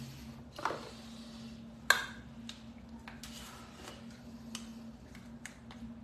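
Small plastic toiletry containers being handled: a few light clicks and taps, the sharpest about two seconds in, over a faint steady hum.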